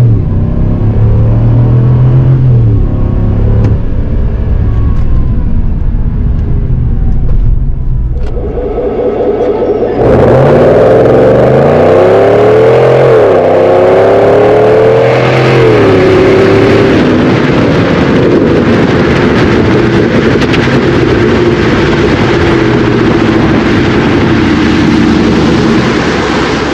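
GM 6.6 L L8T gas V8 through a GM Borla exhaust under full throttle, its note climbing in pitch and dropping back at each upshift. It is heard muffled from inside the cab at first, then switches to louder and brighter at the exhaust tip about ten seconds in. In the last part the engine eases off to a steadier, lower note as the truck slows.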